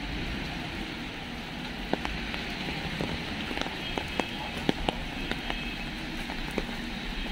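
Steady rain on a city street mixed with the hiss and rumble of traffic on wet road, with scattered sharp ticks of drops.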